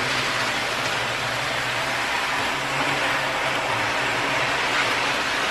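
Tomix N-gauge KiHa 58 series model train running steadily around the track loop: an even whir of its motor and wheels on the rails, with a faint low hum.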